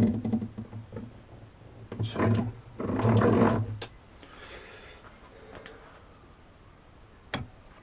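A lathe toolbit scraping a graduation line into a metal cross-feed dial as the saddle is wound along by its handwheel: rough metal-on-metal grinding and scraping in several bursts over the first four seconds, then a single sharp click near the end.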